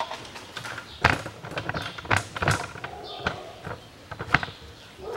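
Irregular knocks and clicks, a few sharper ones about a second in, around two and a half seconds and near four seconds, over a low background hum.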